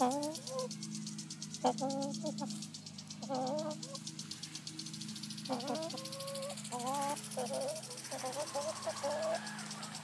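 Backyard hens clucking as they forage: a run of short calls that bend in pitch, coming every second or so and bunching closer together in the second half.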